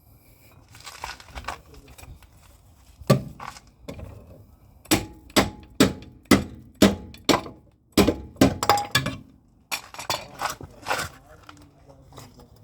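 Hammer blows on metal knocking the worn rear suspension arm bush out of a Mazda 3's rear arm. A few scattered strikes come first, then a steady run of about two blows a second, then a few more near the end, each with a slight metallic ring.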